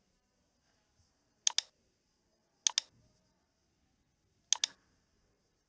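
Computer mouse double-clicked three times: three pairs of sharp clicks, the two clicks of each pair in quick succession, spaced a second or two apart.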